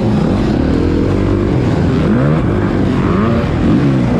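Several motocross bikes racing, their engines revving up and falling back as the riders accelerate and shift, with the pitches of more than one bike overlapping.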